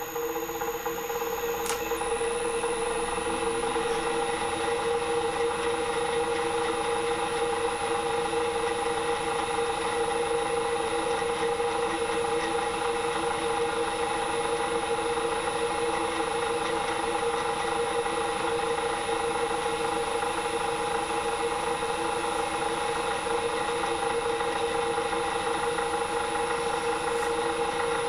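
Small drill press motor running steadily at high speed while a fine bit drills small bolt holes in a cast iron cover plate.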